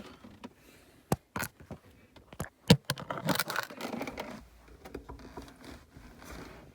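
Hard plastic being handled up close: a few sharp clicks, the loudest a little before the middle, then a stretch of scraping and rustling that fades out.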